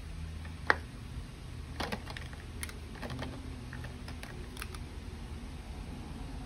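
Plastic alcohol markers clicking and clattering against each other and their plastic storage box as a hand sorts through them: one sharp click a little under a second in is the loudest, followed by scattered lighter clicks, over a steady low hum.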